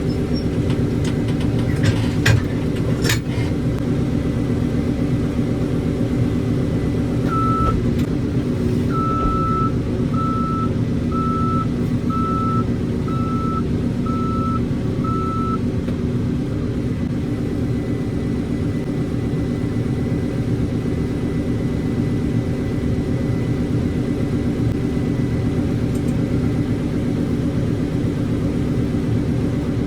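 Diesel engine of a JCB 3CX backhoe loader running steadily under work, with a reversing alarm beeping about once a second, around eight beeps, as the machine backs up. A few sharp knocks sound near the start.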